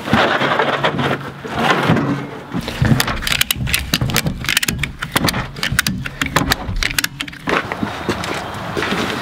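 A wooden crate is knocked and scraped into a tractor's steel loader bucket, then a strap is cranked tight on a ratchet, a quick run of sharp clicks that stops near the end.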